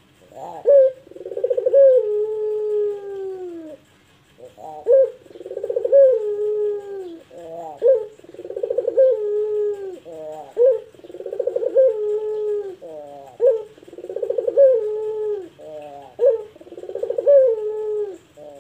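Ringneck dove (puter) giving long pelung-style coos, six phrases about one every three seconds. Each opens with a short rising note, rolls through a trembling coo and ends on a long note that falls in pitch.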